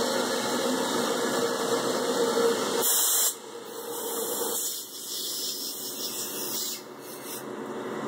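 Compressed-air blow gun hissing in bursts as it blows coolant off a freshly CNC-milled plate. For the first three seconds it runs over a steady machine hum, which then drops away, leaving the hiss coming and going.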